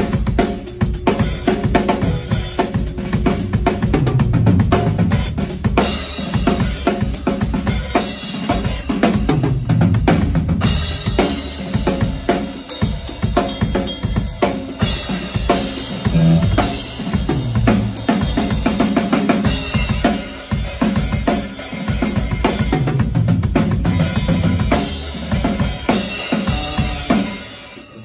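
Yamaha drum kit played continuously, kick drum, snare and cymbals together, dying away near the end.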